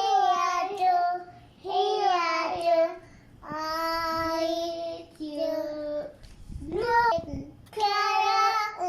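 A young child singing unaccompanied, in short phrases of long held notes about a second each with brief breaks between them.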